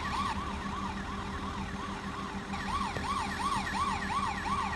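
Electronic siren of a Bruder toy emergency vehicle's light-and-sound module, a fast up-and-down yelp of about three sweeps a second, over a steady low hum.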